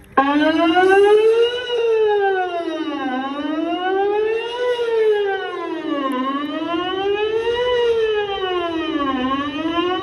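Whelen WPS-2810 electronic outdoor warning siren sounding its 'Best Possible Protection' signal. The tone starts abruptly and then sweeps smoothly up and down in pitch about every three seconds.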